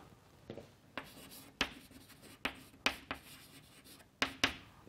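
Chalk writing on a chalkboard: a run of sharp taps and short scratchy strokes, irregularly spaced, as the chalk strikes and drags across the board.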